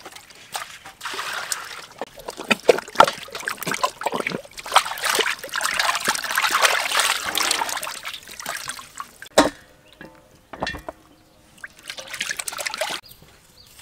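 Hands washing whole raw chickens in a metal basin of water: splashing and sloshing. About nine seconds in there is a sharp knock, after which the splashing is quieter.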